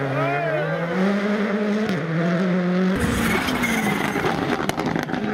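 Rally car engine accelerating hard, its note climbing through the gears with a shift about two seconds in. About three seconds in the sound turns abruptly rougher and noisier as a rally car passes close, with tyre noise and a few sharp cracks.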